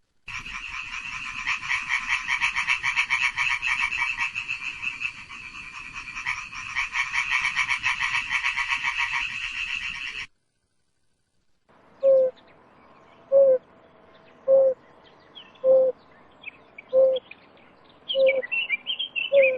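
An insect's dense, fast-pulsing trill, typical of a cricket, for about ten seconds, cutting off suddenly. After a short silence a frog calls with short, low notes about once a second, and higher bird-like chirps join near the end.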